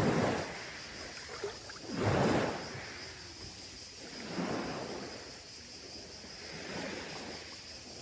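Sea waves washing in on a beach, a surge of water about every two seconds, the strongest about two seconds in.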